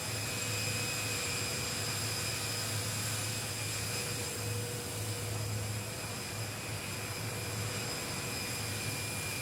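Jet aircraft engines running steadily: an even rushing noise with a constant high whine over a low hum.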